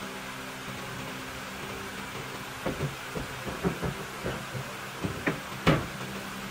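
Loose wooden boards knocking against the wooden slats of a bed frame as they are pressed and shifted into place: a handful of light wooden knocks from about three seconds in, the loudest near the end. A steady low hum runs underneath.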